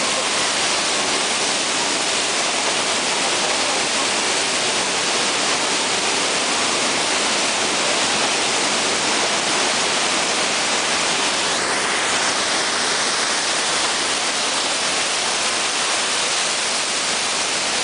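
Steady rush of a large volume of water cascading down the set in a staged flash flood, an even hiss that holds at one level throughout.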